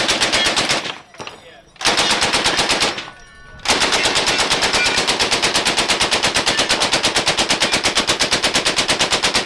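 Belt-fed 7.62 mm machine gun firing on full auto. A short burst, a second burst about two seconds in, then one long unbroken burst from about four seconds in, at roughly ten or more shots a second.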